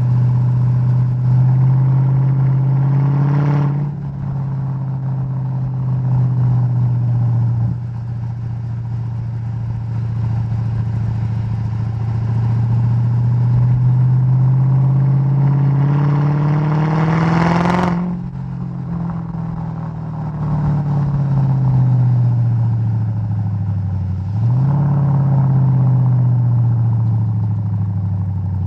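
Mercedes-Benz E55 AMG W211's supercharged V8 exhaust under way: the revs climb slowly in a long pull, cut off sharply about two-thirds of the way in as the throttle closes, then fall away with a quick blip of revs before settling.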